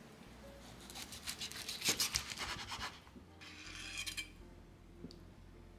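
Chef's knife cutting through crisp-skinned grilled chicken thigh onto a wooden cutting board: a run of short crackly, scratchy cuts from about one to three seconds in, then a shorter scrape just before four seconds.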